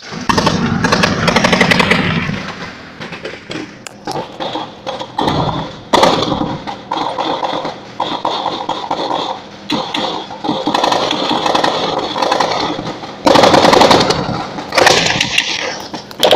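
Several bursts of rapid automatic gunfire over the running engine and rattle of a moving military vehicle. The longest and loudest burst comes near the end.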